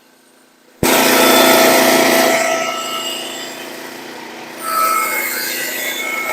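Portable Frontier band sawmill cutting through a log, the blade in the wood and the engine running under load. It cuts in abruptly about a second in, eases off in the middle and grows louder again near the end.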